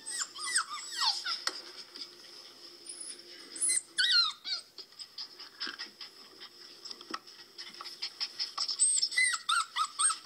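Puppies crying from a laptop's speaker: high, thin whimpers and squeals that glide up and down. They come in clusters near the start, about four seconds in, and near the end.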